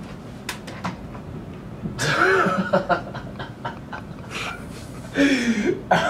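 A man chuckling and laughing in two bursts, about two seconds in and again near the end, with a few faint clicks before them.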